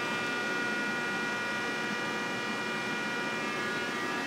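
South Bend G-26T engine lathe running with no cut: a steady mechanical hum with several high, even whining tones from the drive and gearing.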